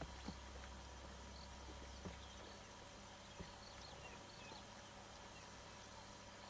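Near silence: faint outdoor ambience with a low hum that drops away about two seconds in, and a few soft clicks.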